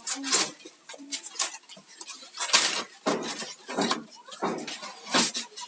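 Plastic parts and packaging of a water purifier being handled and unpacked: an irregular string of short rustles, clicks and clinks.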